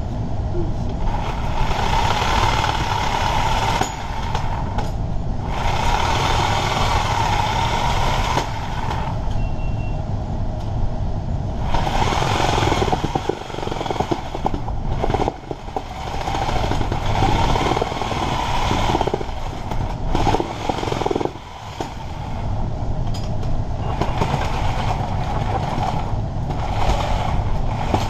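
Backhoe's diesel engine running, rising and falling in surges every few seconds with a few brief dips, as the machine is worked.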